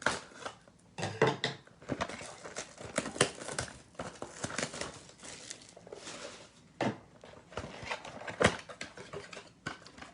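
A cardboard blaster box of trading cards being opened and its foil card packs taken out and set down: irregular rustling, crinkling and light taps, with a few sharper knocks.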